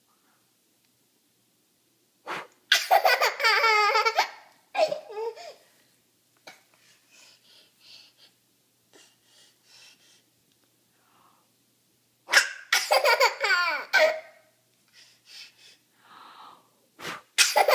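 A toddler laughing in three loud, high-pitched bouts, each opening with a short sharp burst, with faint small vocal sounds in between.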